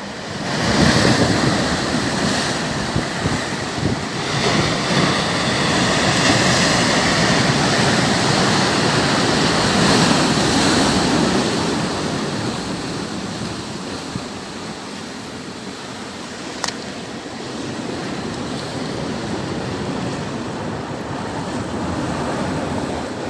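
Sea surf washing ashore, mixed with wind on the microphone: a continuous rushing noise that swells and eases over the seconds. A single faint click about two-thirds of the way through.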